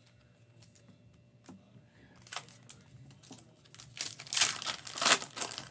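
Foil trading-card pack wrapper being torn open and crinkled. There is a short crinkle partway through, and the loudest crinkling comes in the last second and a half.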